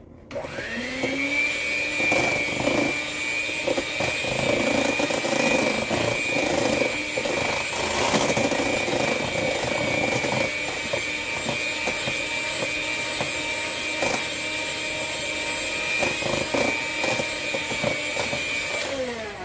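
Small electric hand mixer starting with a rising whine, then running steadily as its beaters whip an egg into creamed butter, the beaters clicking against the stainless steel bowl; it winds down and stops near the end.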